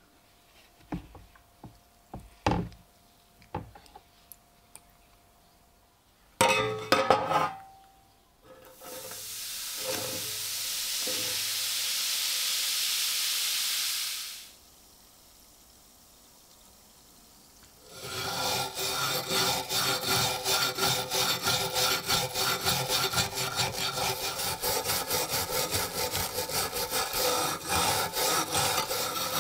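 Scattered knocks and clunks as the axe head is handled in its tank of liquid, then a steady hiss lasting about six seconds. About halfway through, a hand-held wire brush starts scrubbing the rusty axe head in fast, even back-and-forth strokes to loosen the rust.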